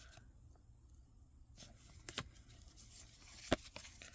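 Faint handling of Pokémon trading cards and their foil booster pack: soft rustling with a few light clicks, the sharpest about three and a half seconds in.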